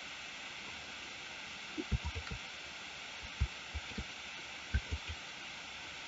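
Steady faint hiss of the microphone noise floor, with about ten soft, low thuds scattered through the middle seconds.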